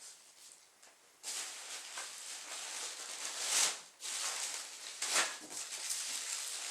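Styrofoam packing peanuts and packing material rustling and shifting as hands dig through a shipping box. It starts about a second in and runs on, with louder rustling surges about midway and again a little later.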